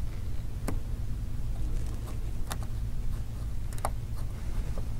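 A few small, sharp clicks of a precision screwdriver tip working the tiny screws of an iPhone 5's metal connector shield, over a steady low hum.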